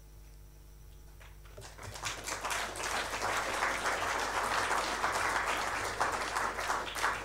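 Audience applauding: after a short near-quiet pause, many overlapping hand claps start about a second and a half in and carry on steadily.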